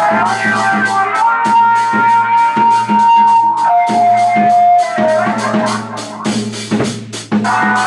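Rock-style music with a rapid, even beat of about five strokes a second under a steady bass, and a guitar holding a long high note that steps down to a lower one about four seconds in.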